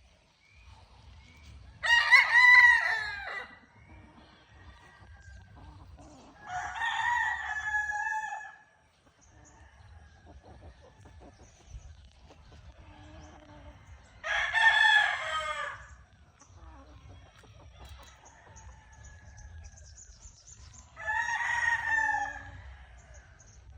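A rooster crowing four times, each crow about a second and a half long and spaced several seconds apart; the first crow is the loudest.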